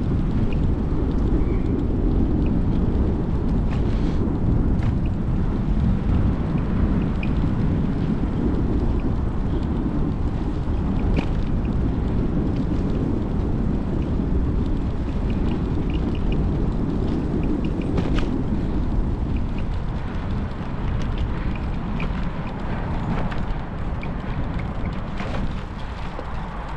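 Wind buffeting the microphone of a camera riding on a moving bicycle, a steady low rumble mixed with tyre noise on the path, with a few light clicks. It eases near the end as the bike slows.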